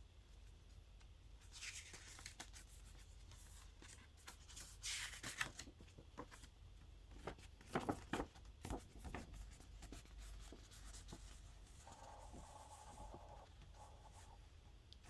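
A SteelBook case and its packaging being handled: rustling and scraping sweeps, then a quick cluster of clicks and taps about halfway through.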